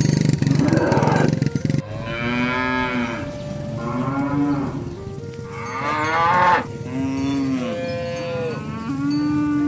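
Cattle mooing: a series of drawn-out calls, some overlapping, with a long steady one near the end. The first couple of seconds hold a louder, rougher sound that cuts off suddenly.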